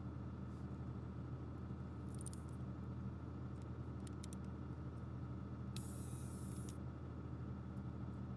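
Steady low hum with a few light clicks and a rasp lasting about a second, near the six-second mark, from a small plastic toy being handled.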